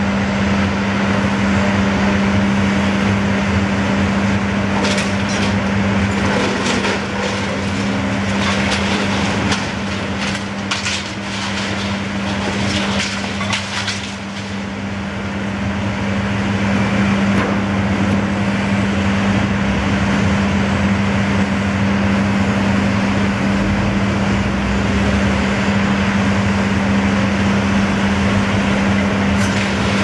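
Long-reach demolition excavator's diesel engine running steadily with a constant low tone, while its grab breaks up a brick wall: cracking and clattering of masonry and falling debris, with a run of sharp knocks about five to fourteen seconds in.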